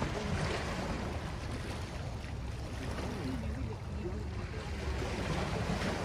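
Small waves lapping and washing against shoreline rocks, one wash swelling about half a second in. Low wind rumble on the microphone underneath.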